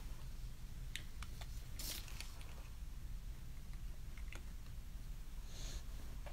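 Scattered light clicks and taps, clustered in the first half, with a brief rustle about two seconds in, over a low steady hum.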